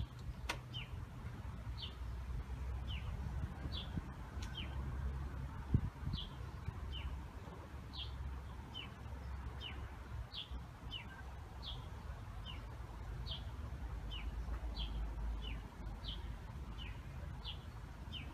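A small bird calling over and over outdoors: short, high, downward-slurred chirps about once a second, some higher and some a little lower, over a low rumble.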